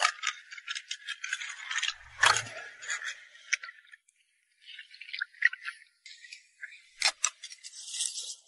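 A metal hook on a long pole scraping, clicking and rattling against rock as it pries at a crab in a rock crevice. There is a dense run of scrapes in the first few seconds with a dull knock about two seconds in, then scattered clicks and a short hiss near the end.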